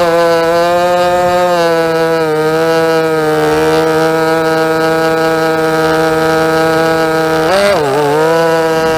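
Racing quadcopter's MT2204 2300kv brushless motors spinning 5045 bullnose tri-blade props, heard close from the onboard camera as a steady buzzing whine. About seven and a half seconds in, the pitch dips sharply and swings back up as the throttle is cut and opened again.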